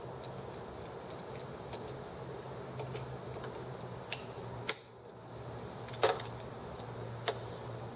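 Light metallic clicks and taps as the removed aluminium cylinder head of a model hit-and-miss engine and its brass valve parts are turned over in the hands. A few sharper single clicks come about four to seven seconds in, over a steady low hum.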